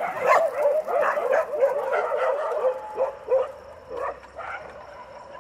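Stray dogs at feeding time, yipping and barking in a fast, excited run of short calls for about three seconds, then a few scattered yips.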